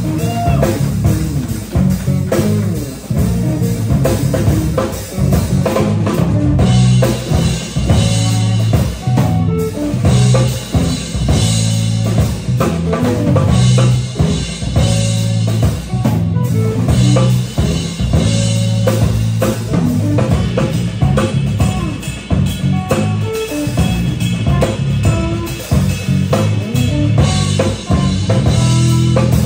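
Live jazz-fusion trio of drum kit, electric bass and electric guitar playing an instrumental groove, with a strong bass line under busy drumming.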